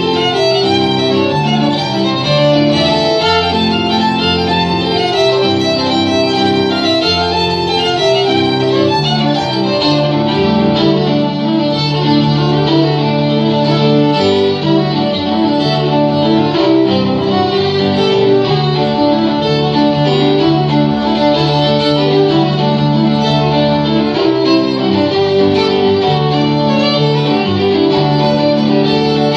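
Live violin and Yamaha electronic keyboard duo: the bowed violin carries a continuous melody over sustained keyboard chords and bass notes.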